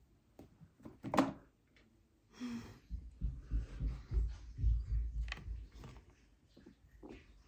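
Phone handling noise: a sharp knock about a second in, then low rumbling and rubbing as the handheld phone is moved and brought close, with another click near the end.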